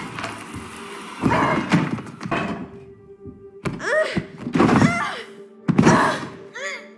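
Animated-film soundtrack: a series of loud thuds and bumps, with short panicked screams about four seconds in and again near the end, over music.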